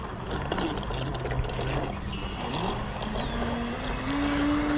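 Radio-controlled boat's motor whining as it tows an RC monster truck through the water, the pitch stepping up over the second half as the boat is throttled up and speeds away, over a steady hiss.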